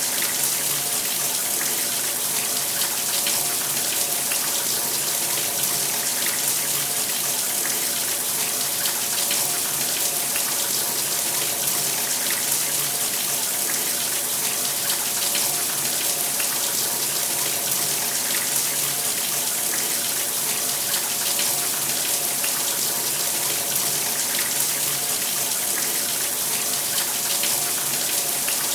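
Shower running steadily: a continuous hiss of water spraying and splashing, with a faint steady hum beneath it.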